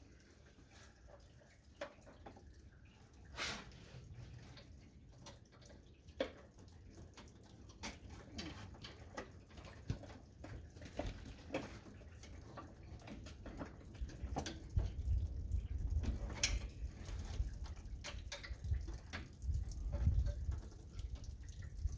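Scattered small clicks and knocks of hands fitting a throttle cable and its clamp under a tractor's dash. A few sharper ticks stand out, and there is low rumbling handling noise in the later part.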